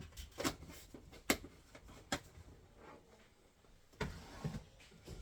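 Kitchen clatter from things being handled: three sharp knocks spread over the first two seconds, then a brief rustling clatter about four seconds in.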